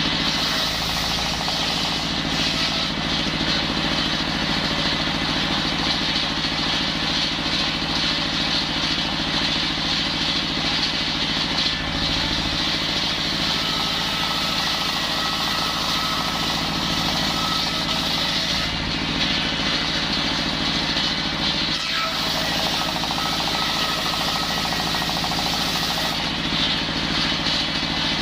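Engine-driven circular saw running steadily while sawing timber into rafter stock, with a thin higher whine coming and going partway through.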